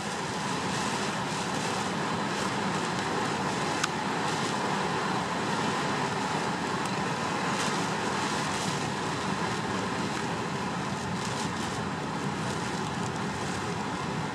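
Steady rushing of strong wind around a truck cab, heard from inside, with one small click about four seconds in.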